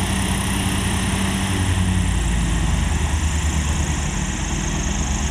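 Engine running steadily with a low hum, its pitch shifting about two seconds in.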